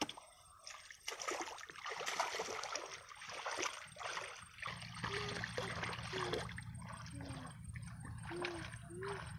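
Shallow muddy water sloshing and splashing in irregular bursts as hands scoop and grope through wet mud, feeling for fish.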